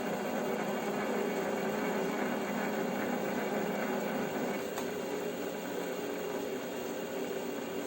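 WM210V-400 benchtop metal lathe running, a steady motor and gear hum with several steady tones; the lowest part of the hum eases about four seconds in.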